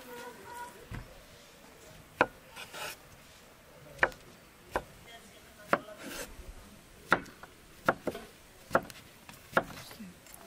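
Chef's knife slicing button mushrooms on a wooden cutting board. The blade knocks sharply on the board about nine times at an uneven pace, starting about two seconds in.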